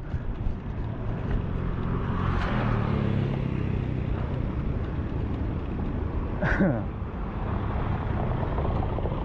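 Wind rushing over an action camera's microphone and bicycle tyres running on wet brick paving, a steady rumbling hiss. A motorbike engine hums past about two to three and a half seconds in, and a short sharp sound cuts in about six and a half seconds in.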